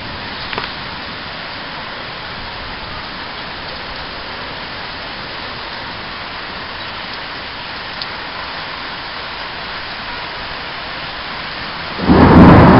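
Steady rain falling in a thunderstorm, an even hiss. About twelve seconds in, a loud, low rumble of thunder breaks in and keeps going.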